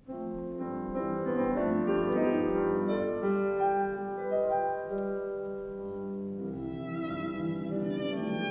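Slow instrumental music with a bowed-string melody over piano, starting suddenly out of silence; the held string notes take on vibrato about seven seconds in.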